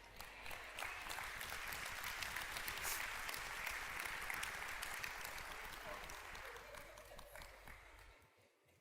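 Congregation applauding, building over the first second or so and dying away near the end.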